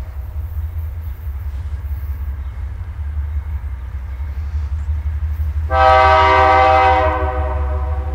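Nathan Airchime K5LA five-chime locomotive air horn sounding its chord over a steady low rumble. A faint held chord dies away early, then a loud full blast comes in about six seconds in and holds on.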